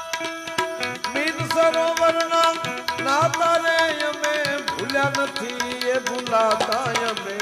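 Instrumental interlude of a Gujarati folk song: an electronic keyboard plays a melody that slides between held notes, over steady tabla strokes.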